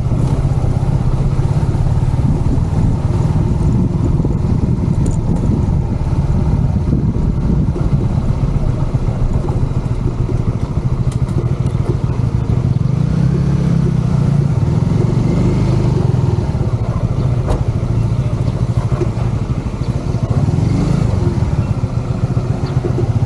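Motorcycle engine running steadily while riding along a road, with no clear revving or stops.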